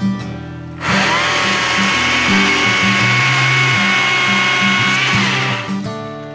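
Stihl MSA 140 C battery chainsaw spinning up about a second in with a high electric whine, running steadily as it cuts through a small branch, then winding down a little after five seconds. Background music with a steady beat plays underneath.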